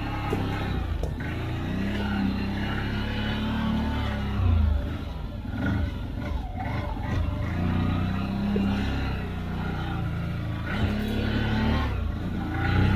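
CFMoto CForce 800 ATV's V-twin engine running while being ridden, its pitch rising and falling as the throttle is opened and eased off.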